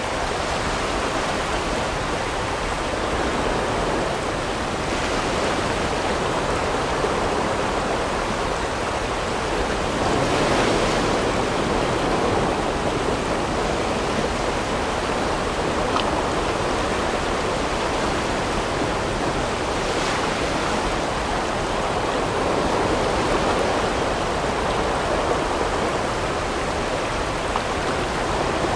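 Barron River water rushing over rocks, a steady even noise that swells a little about ten seconds in, with a couple of faint clicks.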